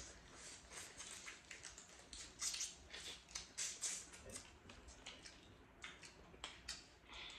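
Close-up eating sounds of seafood being handled, chewed and smacked: soft, irregular clicks and wet smacks.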